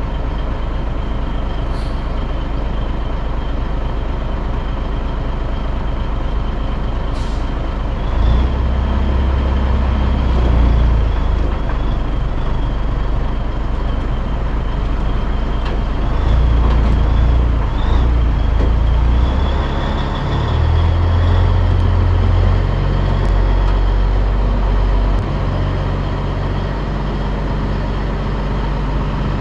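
The Caterpillar diesel of a 1984 Peterbilt 362 cabover running steadily while it hauls a loaded trailer, then pulling harder with deeper surges from about eight seconds in as the rig moves off and turns. There are two short high hisses in the first eight seconds.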